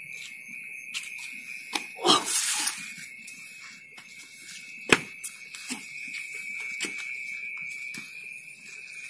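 Steady high-pitched chirring of night insects, with scuffling on dirt ground and a few sharp thumps from people grappling and falling, the loudest about five seconds in.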